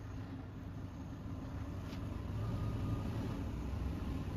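2002 Toyota Tundra pickup's engine running as the truck reverses up to the garage, a steady low hum that grows louder as it comes closer.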